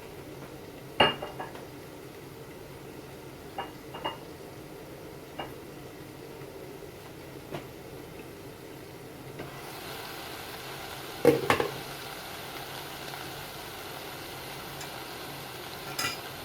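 Stir-frying vegetables in a pan: a utensil knocks and scrapes against the pan now and then, with a cluster of louder knocks about two thirds of the way through. A sizzling hiss comes up about halfway through and keeps going.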